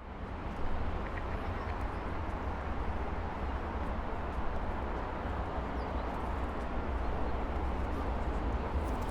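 Steady hum of heavy traffic from a busy multi-lane avenue, a constant deep rumble with a wash of noise above it.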